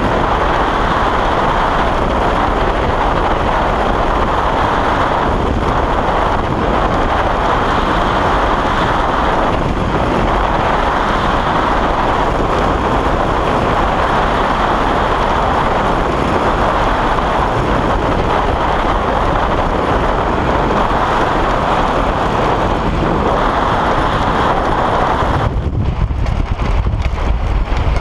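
Loud, steady rush of airflow over the microphone as a hang glider flies through turbulent crosswind. About 25 seconds in the rushing drops off sharply, leaving low, gusty wind buffeting the microphone, as the glider slows on landing.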